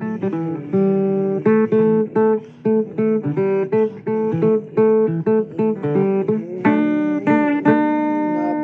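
Blues guitar playing an instrumental break: quick picked notes and chords, then a few longer ringing notes near the end, some bending slightly in pitch.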